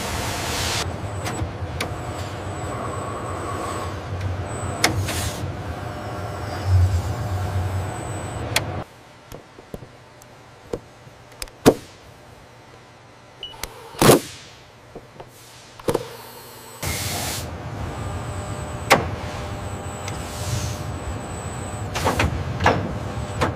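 Assembly-hall machinery ambience: a steady low hum with motor whirs and scattered metallic clicks and knocks. About nine seconds in it drops to a quieter stretch broken by a few sharp clicks, and the hum returns about seventeen seconds in.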